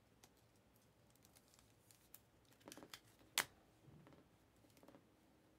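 Faint clicks and taps of glossy trading cards being flipped and set down on a stack by hand, with a small cluster of taps just before three seconds in and one sharper click about half a second later.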